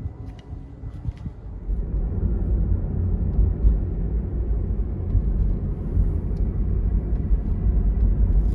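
Toyota Prius under way, with a low steady rumble of road and driving noise that comes up about two seconds in.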